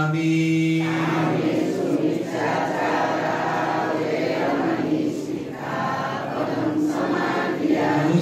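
Group Buddhist chanting by a seated congregation of men and women, many voices together. A steady held tone ends about a second in, giving way to a looser, overlapping blend of chanting voices.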